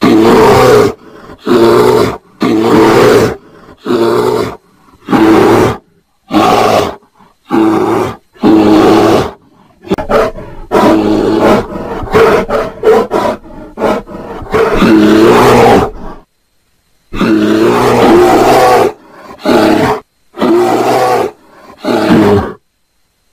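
Brown bear roaring: a long series of short, loud, pitched calls, each under a second, separated by brief gaps, with a longer unbroken run of calls in the middle. The calls are offered as bear mating vocalisations.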